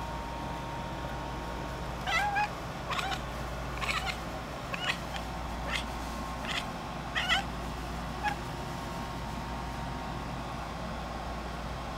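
Russian Blue cat chattering: a string of short chirping calls, about one a second, while it stares up at a bug on the ceiling that it can't reach.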